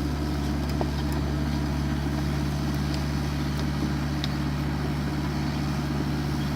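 Excavator's diesel engine running at a steady idle-like hum, with a few faint clicks.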